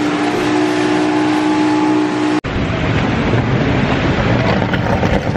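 Speedboat engine running at speed with a steady drone, over rushing water and wind. About two seconds in it cuts off abruptly and is replaced by wind buffeting the microphone.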